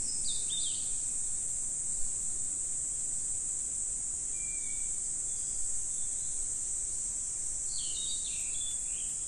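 Steady high-pitched insect chorus, with a few short bird chirps near the start, once in the middle and several near the end.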